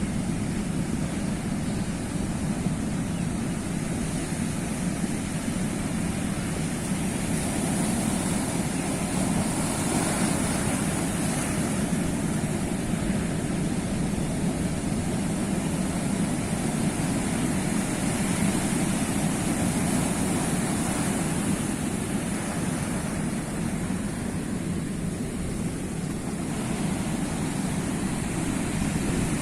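Sea waves washing ashore: a continuous rushing surf that swells for a few seconds about a third of the way in, then settles back.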